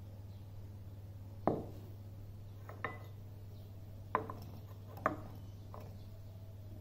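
Glass lab bottle and glass beakers being set down and moved on a wooden bench: five separate knocks with a short ringing after each, the loudest about a second and a half in. A steady low hum runs underneath.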